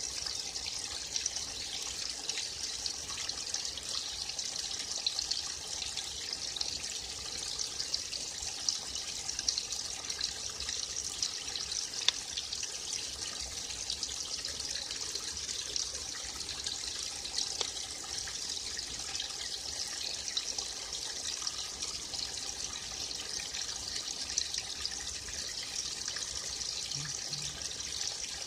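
Small forest stream trickling and splashing steadily over stones, an even rush of running water with frequent small splashes.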